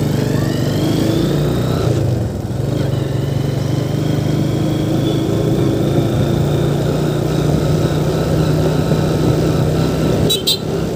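Yamaha motorcycle engine running as the bike rides along, with a high whine that rises over the first couple of seconds as it pulls away, then a steady drone with a whine climbing slowly. A brief rattle of clicks near the end.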